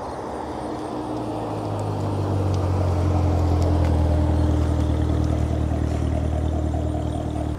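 C7 Chevrolet Corvette's V8 running at low, steady revs as the car rolls slowly past. The deep drone swells as it goes by and then fades as it pulls away.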